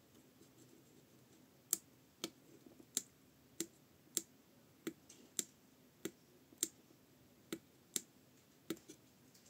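About a dozen sharp button clicks, roughly two a second, starting nearly two seconds in: presses stepping through the menu of a Ford digital instrument cluster.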